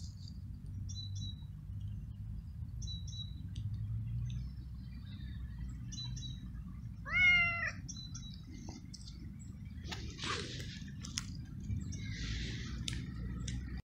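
Domestic cat meowing once, a short loud call about seven seconds in, over faint repeated high bird chirps and a low steady rumble.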